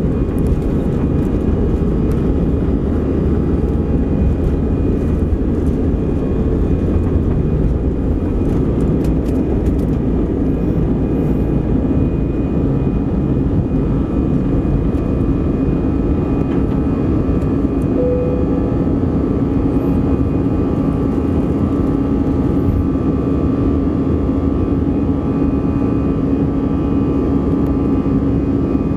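An Airbus A320 in flight, heard from inside the cabin over the wing: the steady roar of the jet engines and rushing air, with a steady hum running through it.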